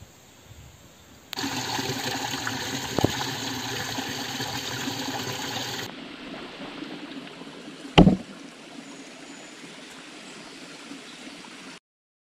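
Steady rushing outdoor ambience, louder from about a second in and dropping back at about six seconds, with a single heavy thump near eight seconds. It cuts off abruptly near the end.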